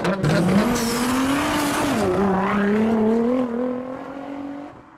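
Car engine revving with tyre squeal: the engine note climbs in the first second, drops about two seconds in, then holds steady and fades out near the end.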